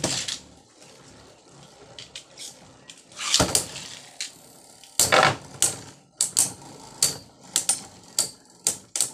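Two Beyblade Burst spinning tops, Brave Valkyrie and Glide Ragnarok, whirring around a plastic stadium bowl and clacking sharply against each other. The loudest clashes come about three and a half and five seconds in, followed by a rapid run of smaller clicks.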